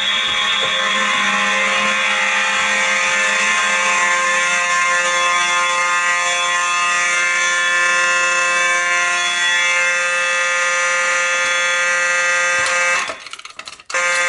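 A fire alarm system in full alarm, its notification appliances sounding together in one steady, loud, continuous tone. It cuts off about 13 s in, sounds again briefly for under a second, then stops near the end.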